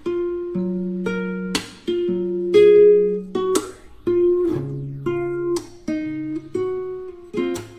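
Background music: strummed guitar chords, changing every second or so.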